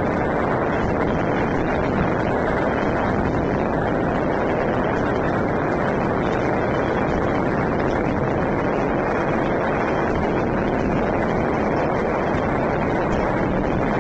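Many fireworks and firecrackers going off at once, their bangs and crackles blending into a steady, dense din with no gaps, and one slightly sharper bang about two seconds in.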